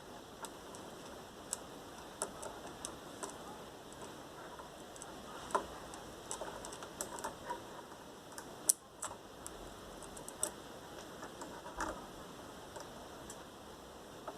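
Scattered light clicks and taps of small screws and hand tools being handled, irregular, with one sharper click near the middle, over a faint steady hiss.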